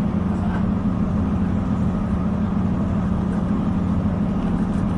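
Steady low drone of a Northern Ireland Railways diesel multiple-unit train, heard from inside the carriage: constant engine hum with even running noise over it, no breaks or changes.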